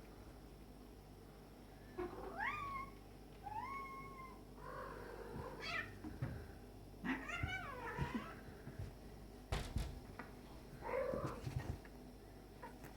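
A cat meowing about five times in drawn-out calls that rise and then level off or fall, with a few soft thumps in the second half.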